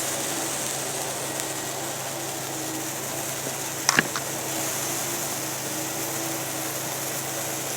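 Handheld Morning Glory sparklers burning together with a steady fizzing hiss. A short sharp chirp about halfway through.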